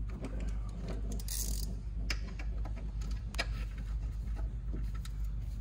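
Light clicks and rustling from a wiring harness, connector and ring terminal being handled, with a brief hiss about a second and a half in, over a steady low hum.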